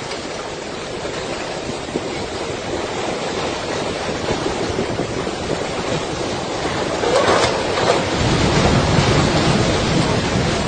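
Storm noise of rushing wind and water, like heavy surf, that swells louder about seven seconds in and takes on a deeper rumble from about eight seconds.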